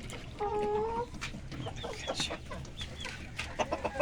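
Desi hens clucking, with one longer drawn-out call about half a second in and a quick run of clucks near the end.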